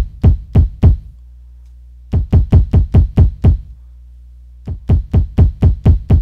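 Layered kick drum, three kick samples stacked on one Maschine Studio pad, played from the pad at about three hits a second in three short runs with brief pauses between. It gets a little softer from run to run as the gain on one kick layer is turned down. A low hum fills the pauses.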